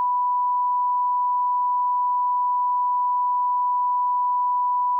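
A single electronic bleep tone at one unchanging pitch, starting suddenly and holding at a constant level.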